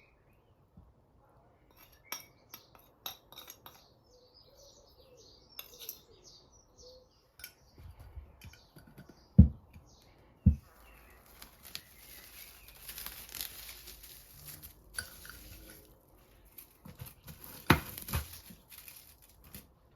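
Kitchen work: dishes and utensils clinking and knocking, with three louder knocks. Birds chirp in the background during the first several seconds, and a steady hiss runs through the second half.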